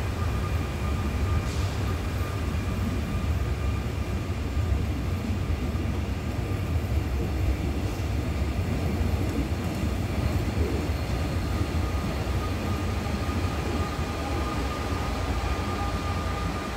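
Seoul Subway Line 4 electric train pulling out of the station: a steady low rumble of the moving cars with a steady high whine over it.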